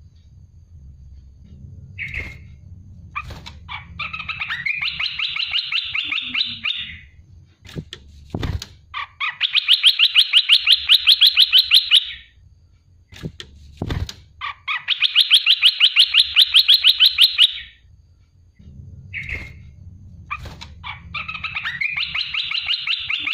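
Olive-winged bulbul singing: four long, fast chattering trills of about eight notes a second, each about three seconds long, with short single notes between them. A low hum lies under some stretches, and two dull thumps come between the phrases.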